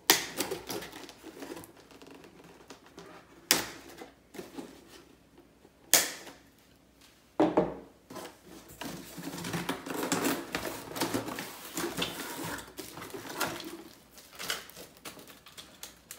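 Cutting snips snapping through the plastic ties that hold an RC car in its cardboard packing tray: four sharp clicks a few seconds apart. After them comes a stretch of cardboard and plastic wrap rustling and scraping as the car is freed and lifted out.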